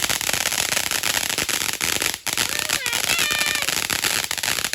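A firework going off with a dense, fast crackling, many sharp pops in quick succession.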